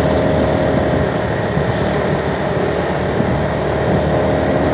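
Steady motor-vehicle engine and road noise at speed, with a faint steady whine above the rumble.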